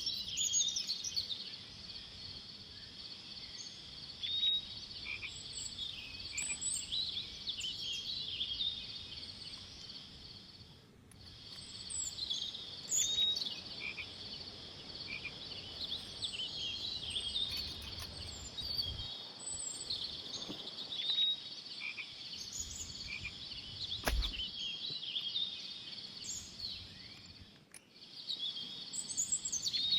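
A steady outdoor chorus of frogs and insects: a continuous high-pitched trill with scattered short chirps and croaks over it. A single sharp knock comes about three-quarters of the way through.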